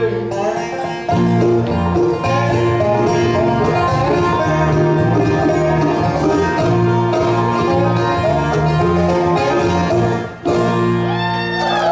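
Live bluegrass band playing an instrumental passage on banjo, fiddle and acoustic guitar. The playing stops briefly about ten seconds in, then comes back in.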